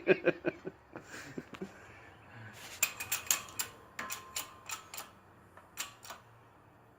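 Carrier bearing being pressed onto a GM 8.5-inch differential carrier in a shop press. It gives a run of sharp, irregular pops and clicks starting about halfway through, after a few softer knocks. The popping is blamed on the press rather than the bearing.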